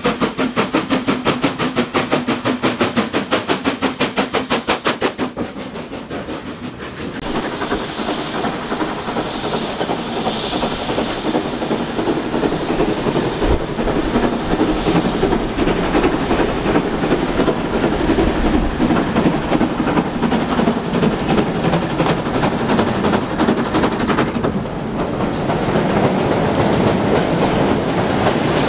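Steam locomotive working hard, its exhaust beating rapidly and evenly for about five seconds. After a cut, the dense clatter of a steam train running past close by, giving way near the end to a steady rushing hiss of steam.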